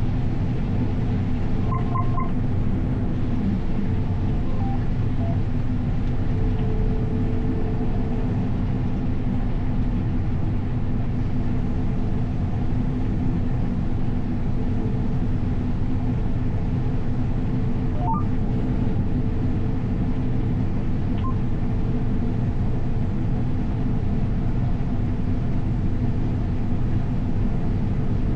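Heavy diesel harvest machinery running steadily, a deep even engine drone. A few short electronic beeps sound about two seconds in and again near the middle.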